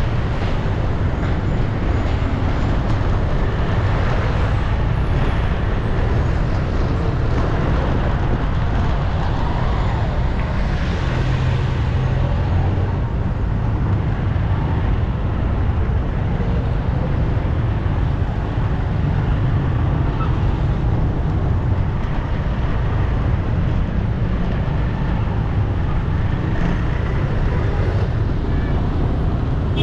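Steady road traffic noise with a heavy low rumble and no distinct separate events.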